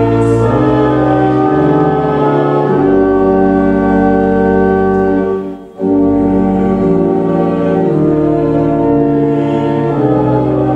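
Church organ playing held chords at a slow hymn pace, with a brief break between phrases a little over halfway through.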